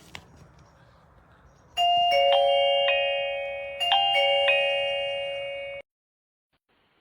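Electronic ding-dong chime of an XTU wireless video doorbell: a bell-like two-note chime played twice, about two seconds apart, starting about two seconds in, each ring dying away before it cuts off suddenly.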